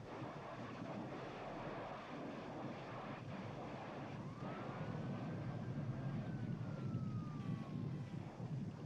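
Wind buffeting the microphone, with a thin whistling tone that glides up about four seconds in and slowly falls away.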